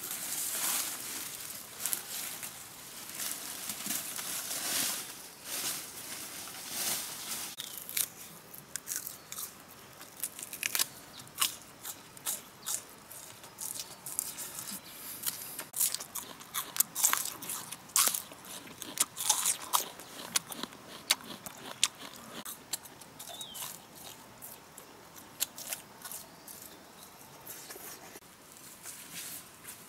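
A person biting and chewing crisp, crunchy food: many sharp, irregular crunches, thickest through the middle and latter part. The first few seconds hold a softer scraping and rustling.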